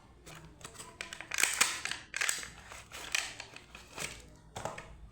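Packaging of a pair of M10 wireless earbuds being handled and opened, crinkling and rustling in a string of short, sharp crackles.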